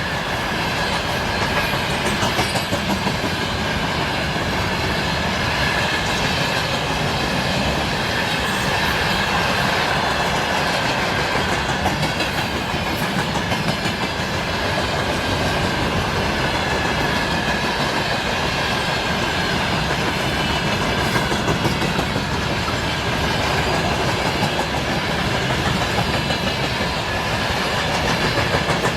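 Train rolling steadily past at speed: continuous wheel-on-rail rumble with the clickety-clack of wagon wheels over the rail joints.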